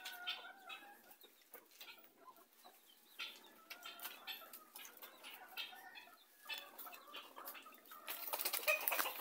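A rooster clucking as it hurries over stony ground, with scattered scuffs and crunches on the gravel. About eight seconds in comes a louder rush of rustling and crunching.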